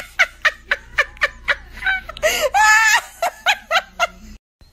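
A person laughing: a run of short rhythmic laughs, about four a second, with a longer high-pitched laugh in the middle, cut off abruptly near the end.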